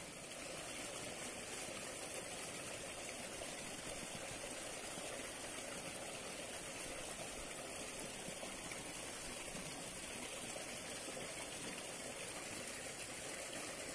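Faint, steady rush of water flowing along a small concrete irrigation ditch.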